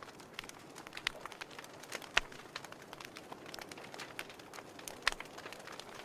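Fire crackling: irregular sharp pops and snaps over a soft hiss, with louder pops about two seconds in and again near five seconds.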